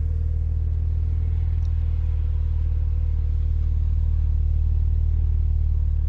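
BMW Z4 35i's N54 twin-turbo inline-six idling smoothly and steadily, a little louder toward the end. The engine now sounds a whole lot better, its rough idle fixed by cleaning the Vanos actuators and changing the oil.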